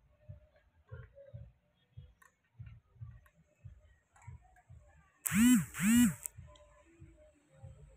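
Cats chewing dry kibble, a soft steady chewing rhythm of about two to three bites a second. About five seconds in, two loud calls, each rising and then falling in pitch, come one right after the other.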